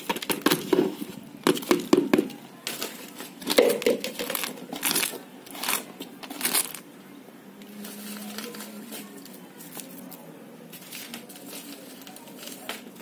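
Soil mixed with dry leaves and kitchen scraps rustling and crackling as it is poured out of a plastic tub into a pot and then pressed and stirred by hand. The rustling comes in quick bunches and dies away about seven seconds in.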